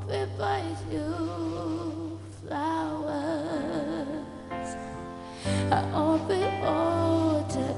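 A female voice sings a pop ballad, holding long notes with wide vibrato over sustained keyboard chords and a steady bass. There is a short break between phrases about five seconds in.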